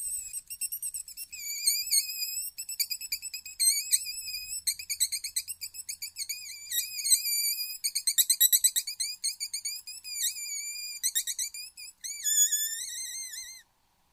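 Wolfers Harp mouth-blown predator call sounding a long run of high, warbling squeals in quick pulses, used to lure a fox. There is a short break about twelve seconds in, the last squeals are lower in pitch, and it stops about a second before the end.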